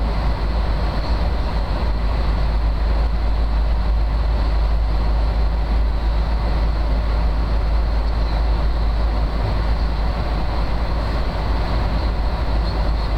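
Steady cabin noise inside an airliner in flight: a deep rumble with a rushing hiss of engines and airflow, unchanging.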